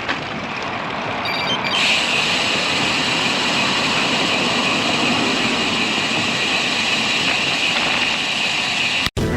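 Steady riding noise from a road bike under way, wind and tyres on the road, with a steady high hiss joining about two seconds in. It cuts off abruptly near the end.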